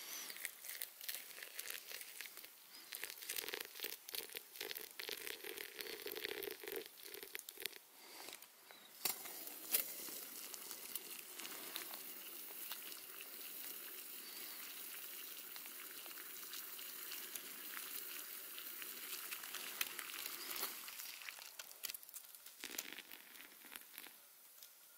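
Small camp stove heating water in a metal mug: a steady hiss with some sizzling. In the first half it is broken by crinkling and light clicks from the foil windscreen and mug being handled.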